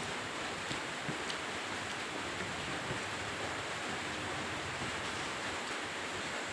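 A steady, even hiss, with a few faint short clicks in the first second or so, typical of mouth sounds while eating.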